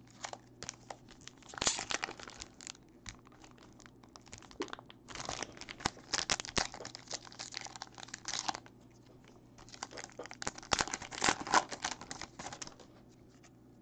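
Foil hockey card pack wrapper being torn open and crumpled by hand, in three bouts of crackling: one near the start, a longer one in the middle and another near the end.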